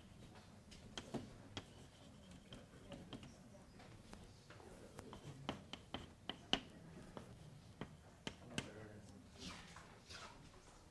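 Chalk writing on a blackboard: a string of sharp, irregularly spaced taps and short scratches.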